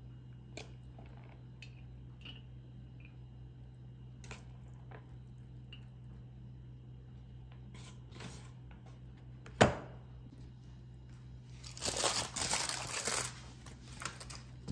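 Kitchen handling sounds: scattered light clicks, one sharp knock about ten seconds in, then a second or so of crinkling near the end, over a steady low hum.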